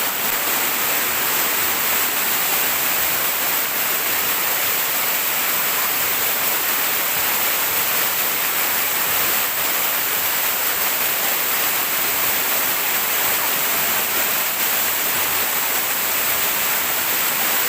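Waterfall: water falling and splashing in a steady, unbroken rush, heavy in the high frequencies.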